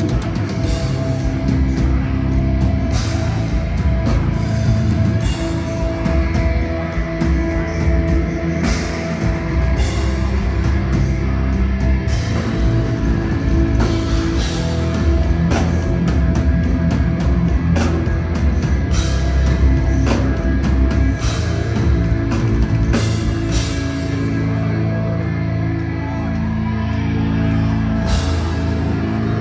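Deathcore band playing live: heavy distorted guitars and bass over a drum kit with repeated cymbal crashes. About 24 seconds in, the cymbals drop away and the low guitars carry on.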